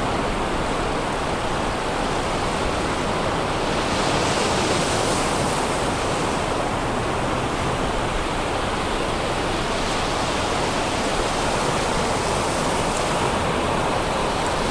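Sea surf breaking and washing up a sandy beach: a steady rush that swells and ebbs gently every few seconds with the waves.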